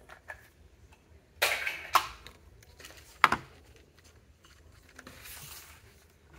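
A small plastic packaging bag is handled and crinkled, with a short burst of crinkling about a second and a half in. A single sharp click a little after three seconds is the loudest sound, and a softer rustle follows near the end.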